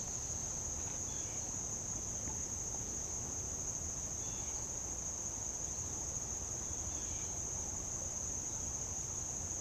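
A steady, high-pitched insect chorus drones without a break, with a few faint short chirps above a low background hiss.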